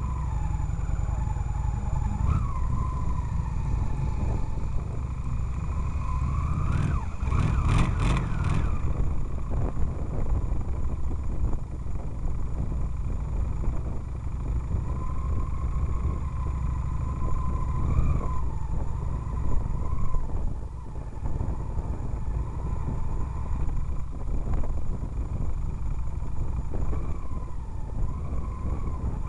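Motorcycle engine running under a camera mounted on the bike as it rides slowly, its revs rising and falling several times over a heavy low rumble. A short cluster of sharp clicks comes about seven seconds in.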